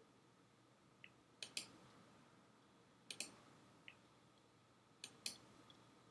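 Faint clicks in near silence: three quick double clicks about two seconds apart, with a few lighter ticks between them.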